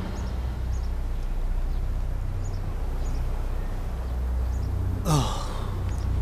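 A steady low drone with faint, scattered high chirps; about five seconds in, a short breathy sound falling in pitch, like a man's sigh or exhale.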